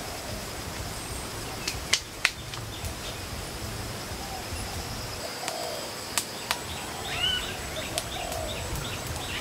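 Forest birds calling: one gives low, repeated hooting notes every second or two, and a run of short, quick chirps from another bird comes in near the end. Under them runs a thin, high, steady whine, and there are a few sharp snaps, the loudest about two seconds in.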